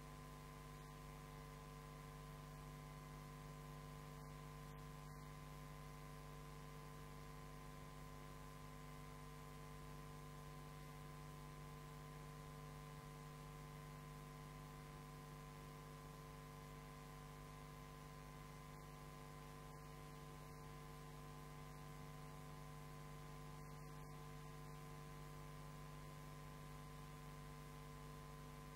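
Near silence with a steady electrical hum and faint hiss, typical of mains hum in the audio chain.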